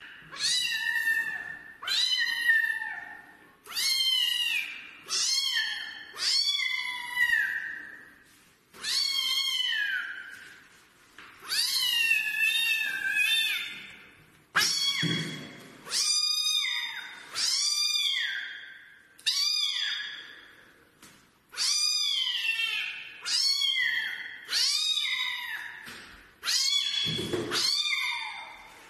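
Kitten meowing over and over, about twenty separate calls each around a second long, inside an empty bathtub.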